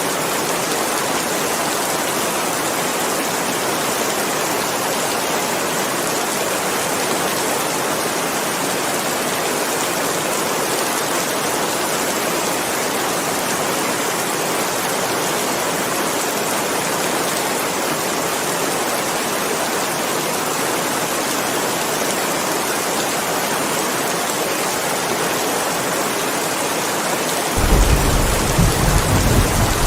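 Steady, heavy rain as an even hiss with no pauses. Near the end a deep rumble of thunder sets in under it.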